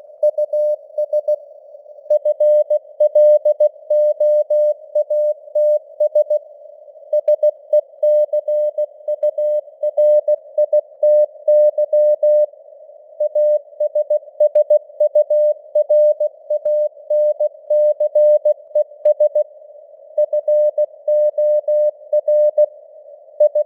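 Morse code (CW) at 16 words per minute: a single mid-pitched beep keyed on and off in dots and dashes, with short gaps between words. It sits in a narrow band of simulated radio hiss, and the signal strength fades up and down (QSB).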